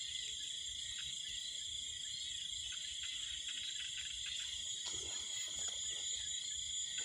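Night insect chorus: crickets chirring without a break in several high, steady bands. A few faint rustles come about five seconds in.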